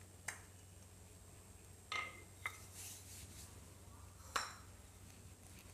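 Light kitchen clatter while a stuffed paratha is readied for rolling: a wooden rolling pin and utensils are handled on a granite countertop, giving four sharp clinks and knocks. The one about two seconds in rings briefly. A faint low hum lies underneath.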